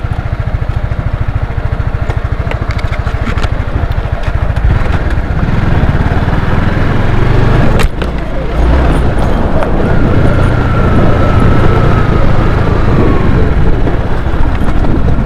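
Motorcycle engine running with a steady low throb of firing pulses, growing louder about a third of the way through and dropping off briefly about halfway.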